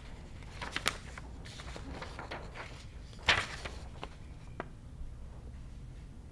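A steady low hum with a few scattered small clicks and knocks, the loudest a short sharp knock about three seconds in.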